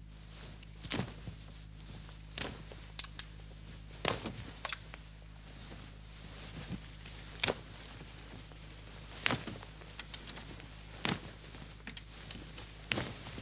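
Cotton shirts being yanked and ripped apart by hand, about ten short, sharp rips of cloth spaced a second or two apart, over a low steady hum.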